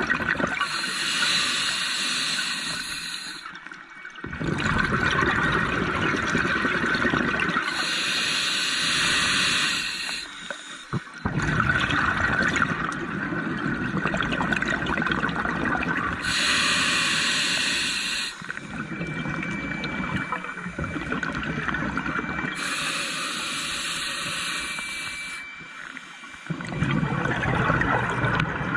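Scuba diver breathing through a regulator underwater, in a slow, regular cycle. Four times, a high hiss of inhalation through the demand valve is followed by a longer, lower rush of exhaled bubbles.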